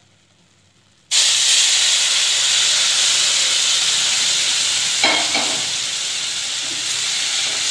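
Hot water poured into semolina roasted in hot ghee in a pan, setting off a sudden loud sizzling hiss about a second in that carries on steadily as the mixture boils up violently.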